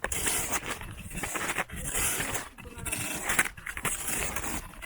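Snowshoe footsteps crunching through snow at an even walking pace, one crunch roughly every second.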